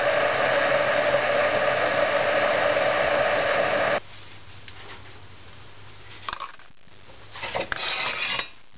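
Pod coffee machine's pump running loudly with a steady hum while brewing into a mug, cutting off suddenly about four seconds in. Near the end come a few brief clinks and scrapes as a spoon knocks in the mug and the mug is lifted off the metal drip tray.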